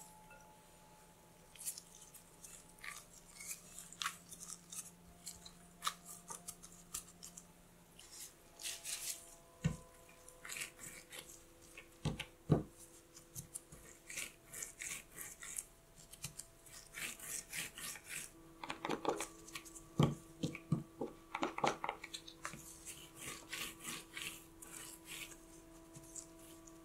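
Gloved hands pressing crumbly cookie dough together and rolling it into a log on a silicone baking mat: soft, irregular rubbing and rustling of gloves and dough, with a few dull thumps as the dough is pressed down on the mat.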